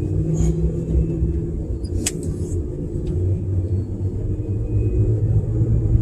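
Low, steady vehicle rumble with a faint engine hum, and a single sharp click about two seconds in.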